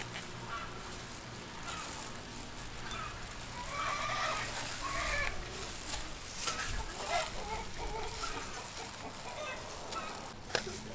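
Chickens clucking in short calls that come and go, busiest about four to five seconds in, with a single sharp tap near the end.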